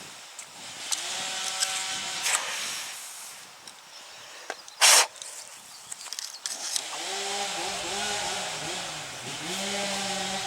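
A small engine running in the background, its pitch rising and falling as it revs, with one short, loud burst of noise about halfway through.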